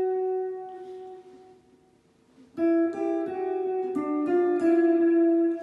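Electric guitar playing single notes on the second string: a held note fading out over about two seconds, a brief pause, then a short melodic phrase of several notes that ends on a held note.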